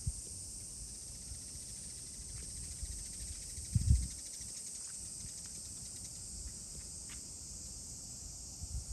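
Steady high-pitched insect chorus in summer, an even hiss with no breaks. A brief low thump about four seconds in.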